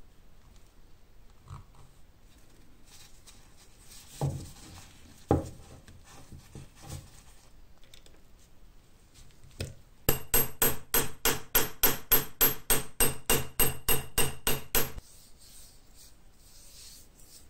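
Small hammer tapping a metal pin into the hole of a steel ferrule on a scythe's wooden handle: about twenty quick, ringing metal taps, roughly four a second, starting about ten seconds in and lasting some five seconds. Two single knocks come a few seconds before.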